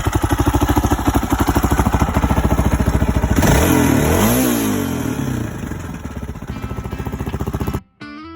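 Motorcycle engine idling with an even pulse, revved once about three seconds in so its pitch rises and falls back, then idling again until it cuts off suddenly near the end.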